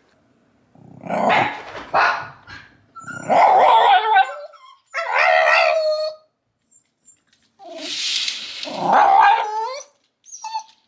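Shiba Inu howling and whining plaintively in four drawn-out cries, each one to two seconds long with a wavering, sliding pitch, and a short fainter one near the end: a lonely dog protesting its owner leaving the house.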